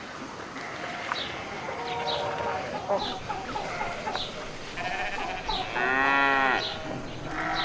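Farmyard animal sounds with a long, wavering bleat about six seconds in, over high bird chirps repeating about once a second.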